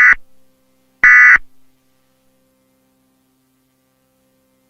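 Emergency Alert System end-of-message data bursts: the last two of three short, loud buzzy digital chirps, about a second apart. A faint steady low hum follows.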